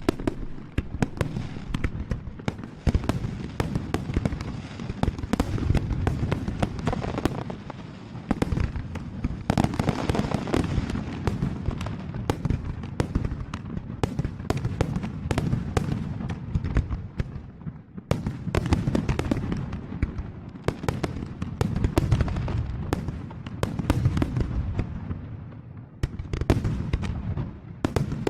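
A fireworks display: many shells bursting in quick, irregular succession over a constant low rumble of explosions, with crackling bangs, the volleys easing briefly a few times before picking up again.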